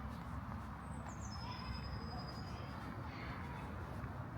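Outdoor park ambience with a steady low rumble, over which a small bird gives a thin, high call about a second in that steps down in pitch and holds for about a second.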